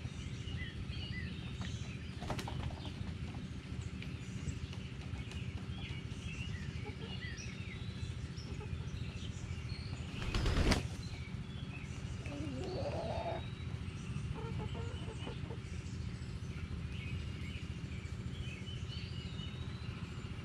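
Chicken wings flapping in one short, loud burst about ten seconds in as a hen flies down from the coop ramp. Wild songbirds chirp faintly throughout over a steady low outdoor rumble.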